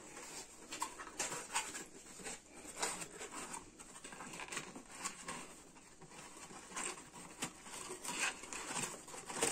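Cardboard boxes being handled: a run of soft, irregular scrapes, taps and rustles as a phone's retail box is pushed into a cardboard shipping box and the flaps are worked closed.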